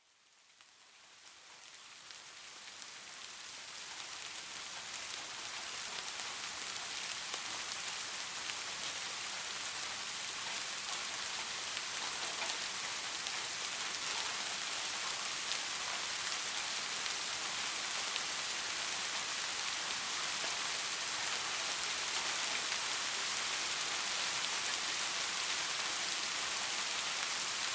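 Steady rain falling on surfaces, a dense hiss scattered with fine drop ticks, fading in over the first several seconds and then holding even.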